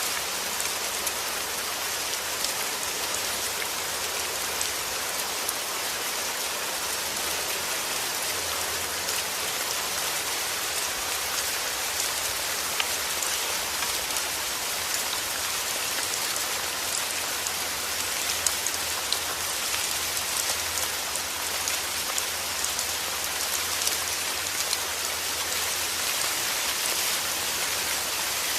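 Steady heavy rain falling and pattering on a surface, with many fine individual drop ticks.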